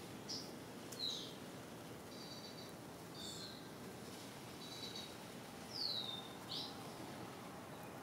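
Birds chirping: short high chirps and a few falling whistled notes come about once a second, the loudest a falling whistle about six seconds in, over a steady low background hiss.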